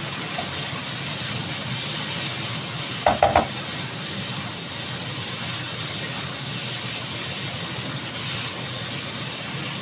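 Meat and shallot filling sizzling steadily as it is stir-fried and tossed with a spatula in a nonstick frying pan. About three seconds in, three quick sharp knocks.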